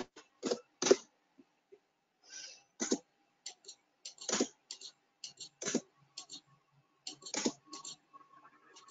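Computer keyboard keystrokes and mouse clicks, irregular short clicks with brief pauses between them.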